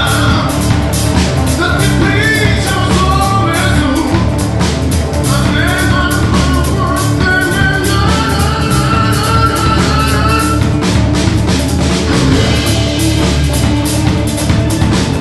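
Rock band playing live: a male vocalist sings into a handheld microphone over electric guitars and a drum kit. The singing stops about ten and a half seconds in, and the band plays on with the drums more to the fore.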